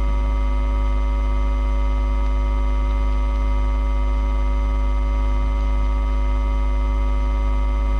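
Steady electrical mains hum: a low drone with a row of steady, higher buzzing tones above it that does not change.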